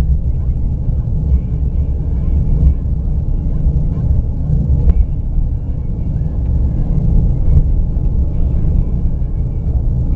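Car driving on an unpaved dirt track: a steady low rumble of engine and tyres on the rough surface, with a few sharp knocks from bumps.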